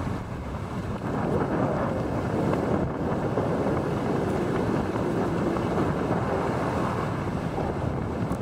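Wind buffeting the microphone in a steady rough rush, with surf washing onto the beach behind it.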